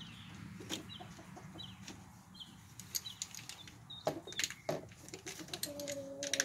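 Chickens clucking nearby: short rising chirps, then a longer held call near the end. A few sharp clicks come between the calls.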